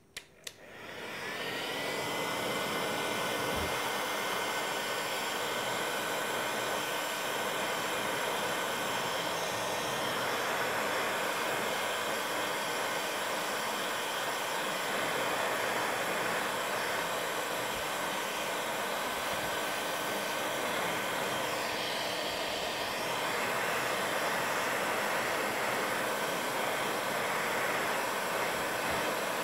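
Gas-powered soldering iron with a hot-air nozzle running to heat a tear in polyethylene plastic for welding: a steady rushing hiss with a faint steady whistle in it. It starts with a couple of clicks and builds up within about a second.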